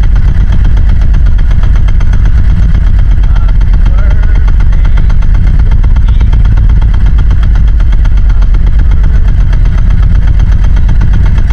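Small fishing boat's engine running steadily, loud and close to the microphone.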